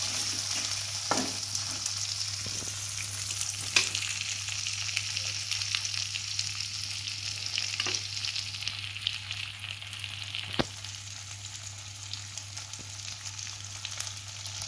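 Potato slices sizzling in hot oil in a metal kadai, with a few sharp taps of a spatula against the pan as they are stirred. The sizzle weakens after about nine seconds.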